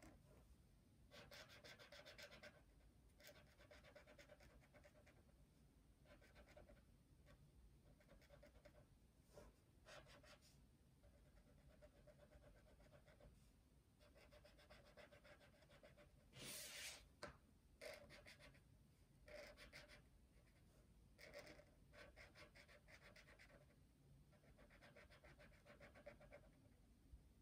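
Dual brush pen colouring on paper in quick back-and-forth strokes: a faint, rhythmic scratching that comes in runs of a second or two with short pauses between. There is one brief, louder rustle about two-thirds of the way through.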